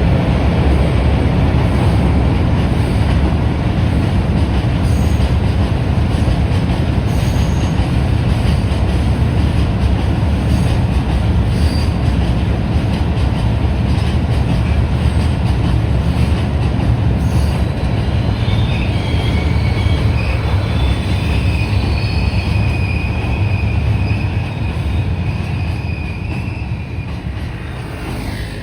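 Freight train passing close by with a steady, heavy rumble of wagon wheels on the rails. From about two-thirds of the way in, a high-pitched wheel squeal sounds over the rumble, and the rumble eases slightly near the end.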